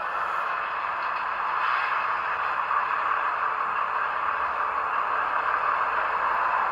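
Roco H0 ST44 model locomotive's sound decoder playing the diesel engine sound through the model's small built-in speaker: a steady, thin, hissy running noise with no deep bass.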